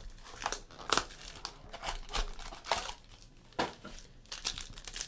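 Trading-card pack wrapper being torn open and crinkled by hand, a run of irregular crackles and rustles.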